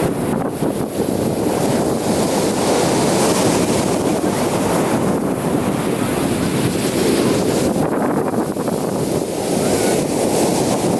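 Ocean surf breaking and washing onto the beach, swelling and easing, with wind rumbling on the microphone.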